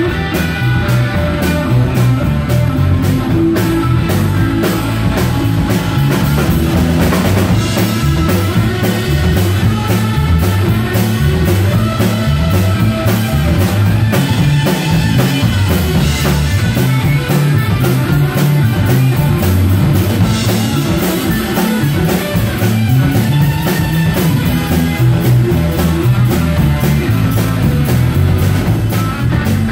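Live rock band playing an instrumental passage: electric guitar, electric bass and a Pearl drum kit keeping a steady beat, with no singing.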